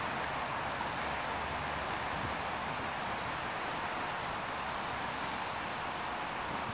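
Steady running noise heard inside a 71-931M Vityaz-M articulated tram car, with a high hiss that comes in about a second in and stops near the end.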